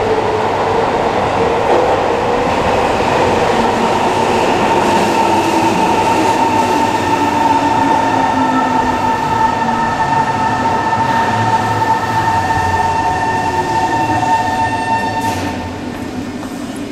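Tokyo Metro 03 series subway train braking into an underground station: wheels rumbling on the rails under a whine from its motor equipment, with one tone slowly falling in pitch as the train slows. The whine dies away and the sound drops near the end as the train comes to a stop.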